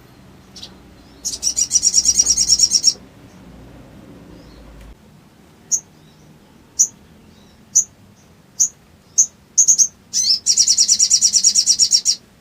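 Sogok ontong (sogon) songbird calling: a rapid high trill, then single sharp chips coming closer together, then a second long rapid trill near the end.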